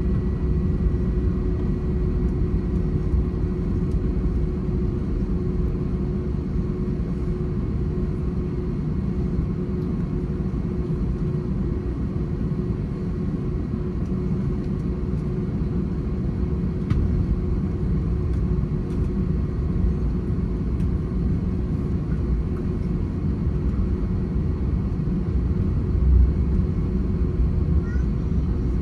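Steady engine rumble of an Airbus A321-231 with IAE V2500 engines, heard inside the passenger cabin, with a constant low hum over the drone.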